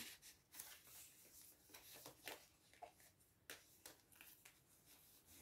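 Near silence with faint rustling and a scattering of light ticks as paper and cardstock pages, tags and a string-tied envelope in a junk journal are handled.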